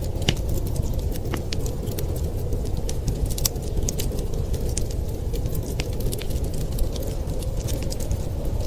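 Wood fire crackling in a fireplace, with many irregular sharp pops and snaps over a steady low rumble of storm wind.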